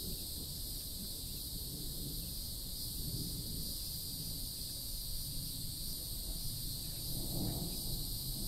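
Outdoor garden ambience: a steady high insect drone with a low wind rumble on the microphone, and a brief rustle about seven seconds in.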